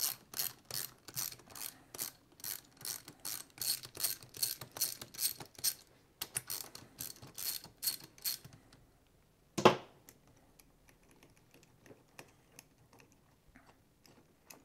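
Ratchet wrench clicking in quick runs, about three clicks a second, as the 12 mm bolts holding the rocker gear on the cylinder head are loosened. The clicking stops a little past halfway, followed by one sharp knock, the loudest sound, and then only faint light ticks.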